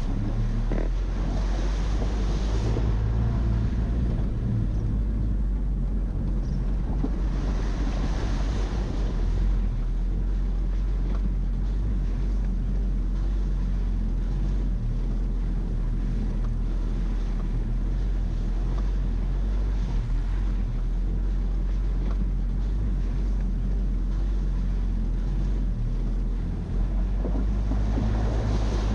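Toyota Land Cruiser 4x4 driving, a steady low engine drone under wind and rolling noise, with the hiss swelling twice in the first ten seconds.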